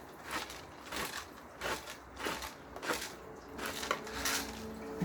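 Pepper mill grinding peppercorns, a short gritty crunch with each twist, about seven twists spaced roughly half a second apart.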